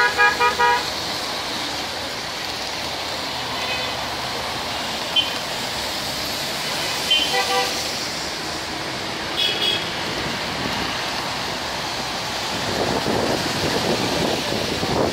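Road traffic with car horns tooting: a quick string of beeps in the first second, then several short toots around four, seven and ten seconds in. The rushing noise grows rougher and louder near the end.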